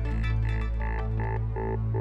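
Electronic background music with a steady deep bass and a pulsing synth pattern of short repeated notes, about two to three a second.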